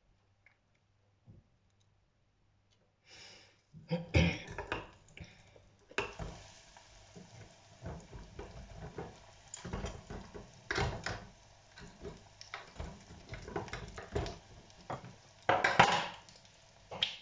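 Breaded prawns deep-frying in an electric fryer: after a few nearly quiet seconds and some knocks of the wire fry basket, the hot oil sizzles and bubbles steadily from about six seconds in, with further metal knocks and clinks of the basket now and then.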